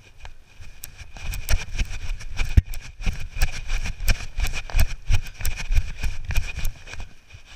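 Footfalls of someone running on grass, picked up by a body-worn action camera that jolts with each stride: quick, uneven thuds and knocks over a low rumble. They build about a second in and ease near the end.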